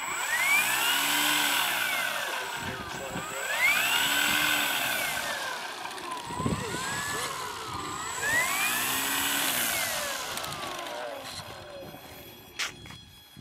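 Electric brushless outrunner motor and 15-inch propeller of an E-flite Carbon-Z Cub RC plane being throttled up and back down several times, its whine and prop buzz rising and falling in pitch with each run-up.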